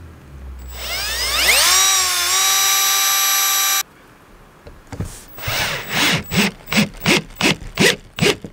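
Cordless drill boring a pilot hole through a plastic solar-panel mounting bracket: the motor whine rises as it spins up, holds steady, then cuts off. About a second later the drill drives a stainless steel screw into the hole in a series of short bursts, about three a second.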